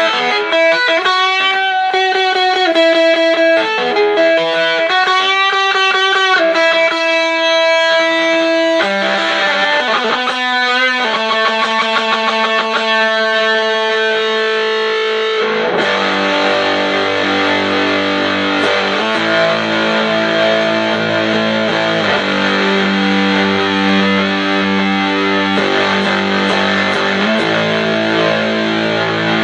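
Electric guitar played through a Buzzsound fuzz pedal, a clone of the Castledine Buzzsound, with the sustain turned fully up. First come long sustained lead notes with bends and vibrato, then, about halfway through, lower, thicker fuzzy chords held and changed every couple of seconds.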